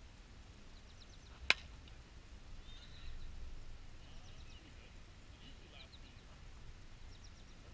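A single sharp crack of a softball bat striking a pitched ball about one and a half seconds in, with faint high chirps in the background.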